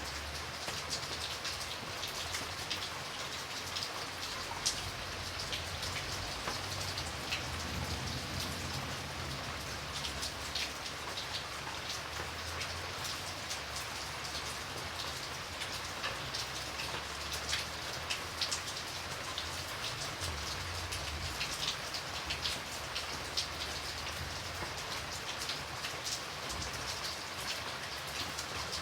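Steady rain falling, a constant hiss with many individual drops ticking sharply and irregularly on a surface close by, and a low rumble underneath.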